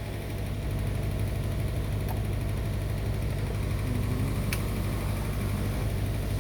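Homage 1002 UPS humming steadily while it charges its battery, a low mains-frequency transformer hum that grows a little louder about half a second in.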